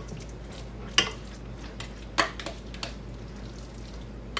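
A spoon clinking and scraping against a stainless steel insert pan as meatloaf mixture is spooned in. Two sharp clinks come about one and two seconds in, with a few softer taps after.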